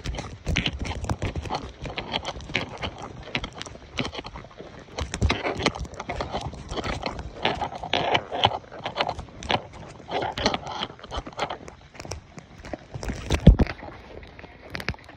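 Horse walking on a gravel trail, hooves crunching and clopping irregularly, mixed with rubbing and knocks of a phone being handled against the rider and saddle; one louder knock near the end.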